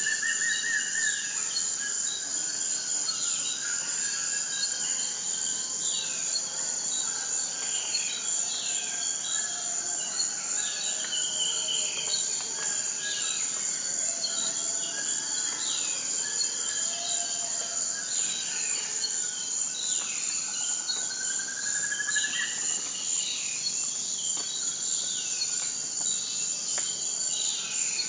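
A steady, high-pitched insect trill runs on without a break. Over it come many short, falling bird chirps, and a rising whistled note at the start and again about three-quarters of the way through.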